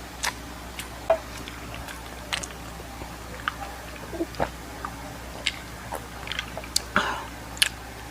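Close-up mouth sounds of a person eating: chewing with irregular wet lip smacks and sharp clicks, a dozen or so scattered through, over a steady low hum.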